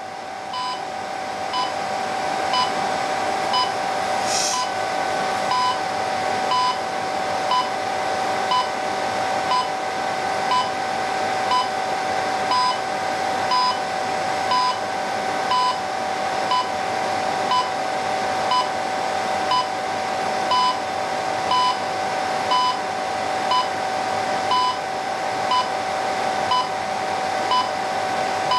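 Time-signal beeps from a modified-DCF77 AM-coded 25 MHz radio transmitter: one short beep each second, some slightly longer than others as the time code is sent. They sound over a steady hum.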